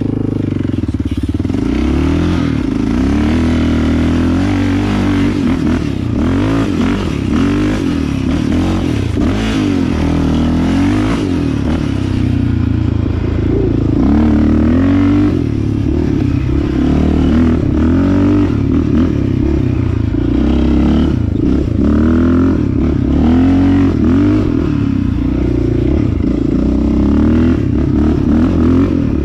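Yamaha Raptor 660 sport quad's single-cylinder four-stroke engine under way, its revs climbing and falling back every second or two as the throttle is worked.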